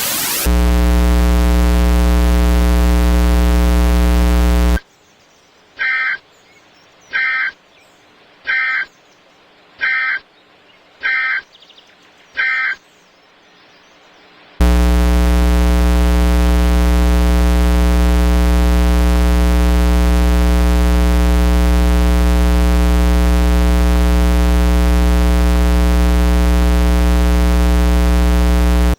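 Electronic alert buzzer of a mock emergency broadcast: a loud, harsh low buzz for about four seconds, then six short higher beeps evenly spaced about a second and a half apart, then the same low buzz again, held steady for about fourteen seconds.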